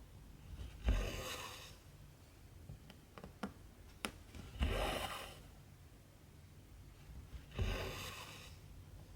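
Cotton embroidery thread pulled through 14-count cross-stitch fabric three times, each a soft rasping pull lasting under a second, with faint ticks from the needle between pulls.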